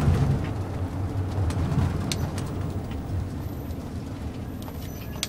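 Tour shuttle's engine and road noise heard from inside the cabin: a low rumble that slowly dies down. Faint high whistling tones come in near the end.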